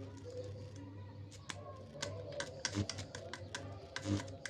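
Homemade arc welder built from lamp ballasts, crackling as its arc is struck: irregular sharp clicks over a steady low mains hum from the ballasts, the hum swelling with the loudest crackles, about three seconds and four seconds in.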